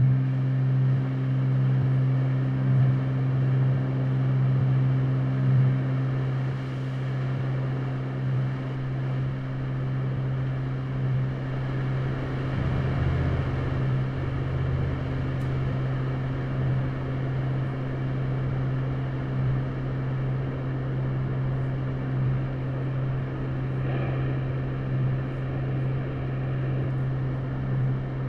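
A steady low drone from an electric guitar through effects opens the set, holding one deep pitch with fainter higher tones above it and swelling gently in level.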